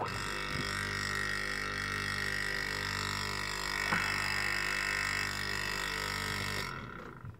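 Vintage Unidad Hermetica L65AS hermetic refrigeration compressor starting with a click and running with a steady hum under vacuum, then fading out near the end as it stops. Its owner takes the sound as a sign that it is very well built inside.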